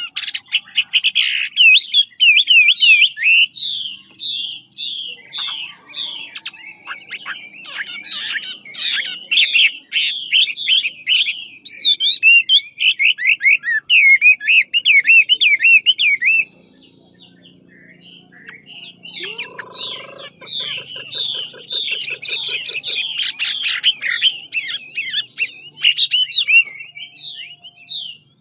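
Chinese hwamei (Garrulax canorus) singing: long, loud phrases of rapid, repeated sweeping notes, with a short pause a little past halfway before the song resumes.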